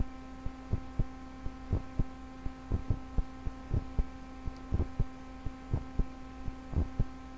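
A steady electrical hum with a low haze beneath it, and irregular short low ticks or thumps about two or three a second.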